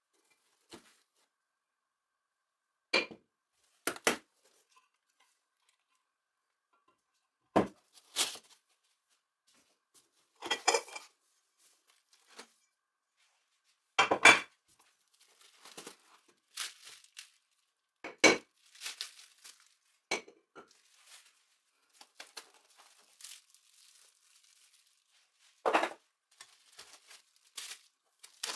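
Aluminium machine parts lifted out of foam packing and set down, in a dozen or so separate knocks and clinks of metal, with the crinkle of bubble wrap and plastic wrapping between them.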